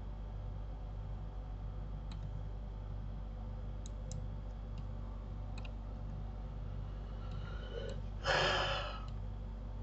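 A few faint computer mouse clicks over a steady low electrical hum, then a short rush of noise about eight seconds in, the loudest thing here.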